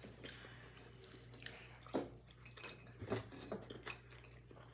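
Quiet sounds of eating by hand: fingers working rice on a plate and chewing, with a couple of sharp clicks about two and three seconds in, over a steady low hum.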